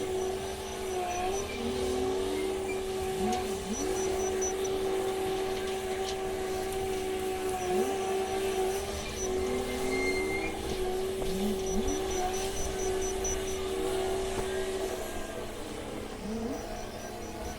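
Komatsu WA500 wheel loader at work: a steady whine runs under several short rising revs. Faint, high ticking sounds come in short clusters every few seconds.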